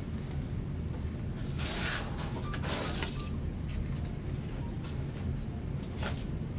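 Rustling and scraping of craft pieces being handled on a tabletop, in two short bursts about one and a half and two and a half seconds in, with a few faint ticks over a steady low hum.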